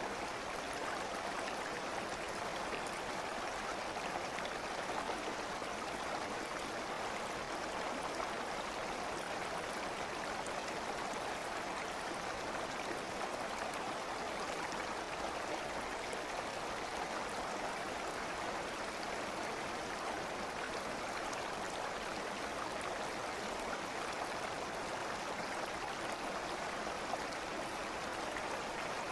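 A stream of running water flowing steadily, an even rushing with no changes.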